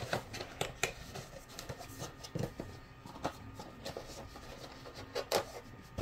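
Plastic accessory bags rustling and small plastic parts clicking as they are handled, a scatter of short crinkles and light knocks.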